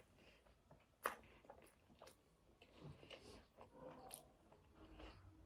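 Faint close-miked chewing, with a sharp click about a second in and a few softer clicks.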